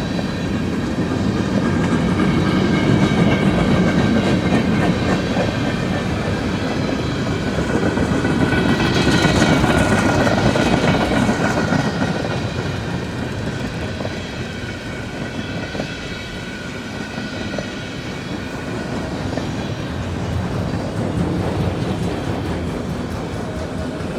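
Freight cars of a mixed manifest train rolling past: a steady rumble of steel wheels on rail with a clickety-clack over the rail joints and several faint, steady high ringing tones from the wheels. The sound swells about halfway through, then eases off.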